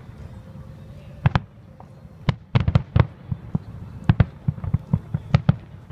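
Aerial firework shells bursting in a series of sharp bangs: a pair about a second in, then a rapid, dense run of reports from about two seconds in.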